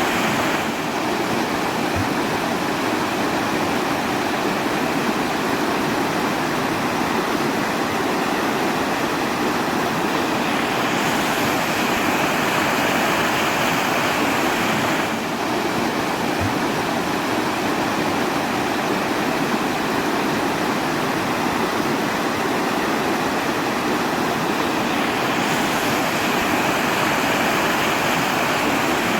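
Steady rushing water, an even, unbroken rush with no swells or pauses; its tone shifts slightly a few times.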